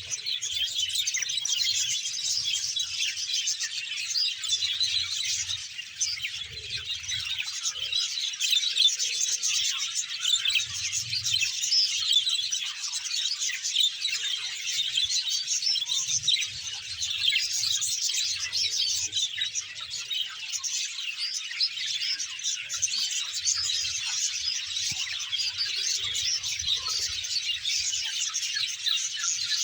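A large flock of budgerigars chattering and chirping all at once, a dense, unbroken mass of high chirps.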